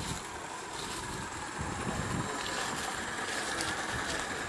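O gauge live steam locomotive running along garden railway track: a steady hiss and rumble.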